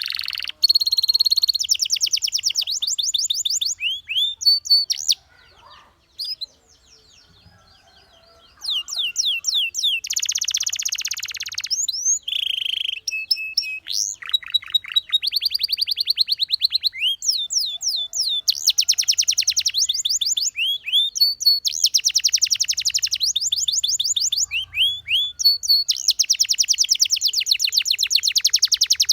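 Domestic canary singing: high-pitched, fast repeated trills and rolls, with a pause of about three seconds some five seconds in.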